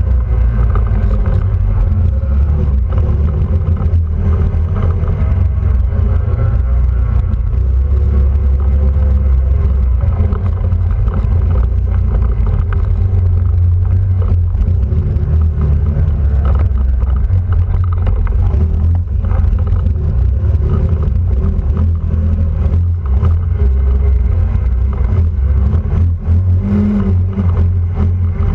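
Quad bike (ATV) engine running under way, its note rising and falling with the throttle over a heavy low rumble, with a few short knocks along the way.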